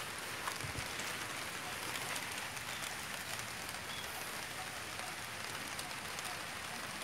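Steady rain falling, an even hiss scattered with small drop ticks.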